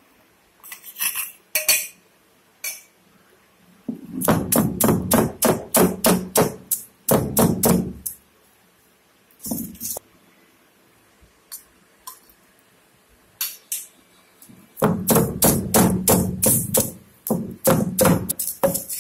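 Stone roller knocking and rolling on a flat granite grinding stone (ammi kal), crushing garlic cloves. The knocks come in two runs of about three to four a second, one a few seconds in and one near the end, with a few single knocks between.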